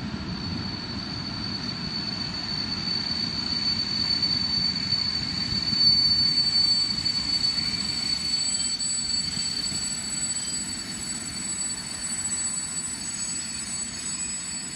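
A long freight train of open wagons rolling past, with a steady rumble from the rails and one continuous high-pitched squeal over it. The sound swells to its loudest about six seconds in, then slowly fades.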